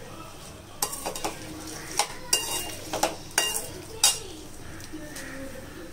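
A metal slotted spoon clinks and scrapes against a metal kadai as chopped vegetables are stirred while sautéing. About eight sharp knocks come irregularly between about one and four seconds in, the loudest near the end of that run.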